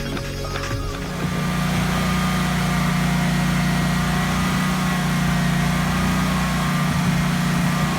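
A small engine running steadily at a constant speed, a low even hum with a hiss over it, settling in about a second in.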